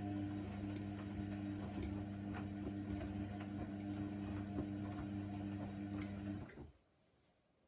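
Hoover Nextra 6 washing machine's pump running with a steady hum and irregular light ticking, then switching off abruptly about six and a half seconds in.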